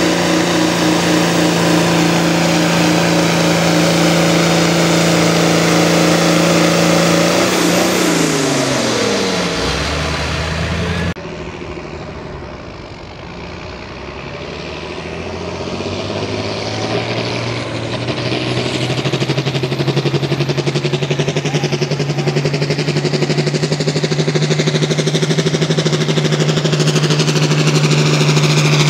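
Pulling tractor's engine running hard under load; about eight seconds in its pitch falls away as it slows and comes off the throttle. After an abrupt cut about eleven seconds in, a tractor engine builds up gradually and settles into a steady, loud run.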